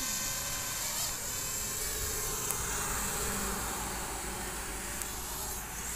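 DJI FPV quadcopter drone in flight, its propellers giving a steady insect-like buzz.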